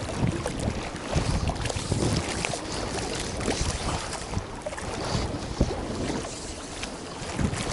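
Wind buffeting the microphone in uneven gusts, a low rumble over a steady hiss.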